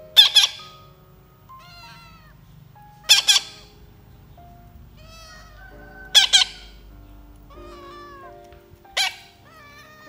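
A young parrot's harsh begging squawks while it is being hand-fed, four of them about three seconds apart, each a quick double squawk. Background music with a melody plays between them.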